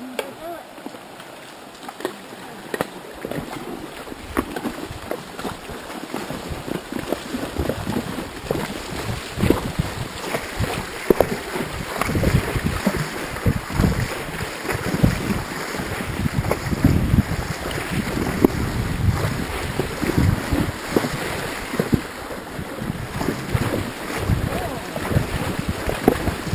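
Hooves splashing and water sloshing as two ridden mounts wade through a shallow rocky creek, growing louder after the first few seconds, with wind rumbling on the microphone.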